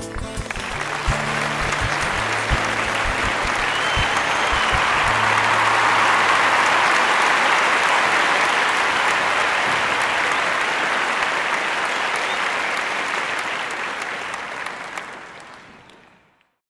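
Applause from a large audience, building over the first couple of seconds, holding steady, then fading out near the end. For about the first five seconds the song's final low note rings on under it.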